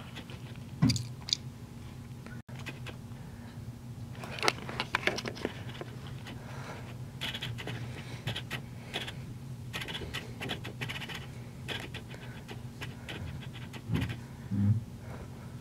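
Close scratching and rustling of a hand playing with and rubbing a kitten, in quick clusters of clicks, over a steady low hum. A few dull thumps sound about a second in and near the end.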